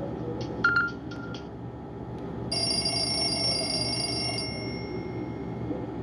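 Nokia 130 feature phone's small loudspeaker playing a Nokia 6650 Fold ringtone: a loud short beep and a few faint clicks in the first second and a half, then about two and a half seconds in a bright held ringtone note that lasts about two seconds and fades out.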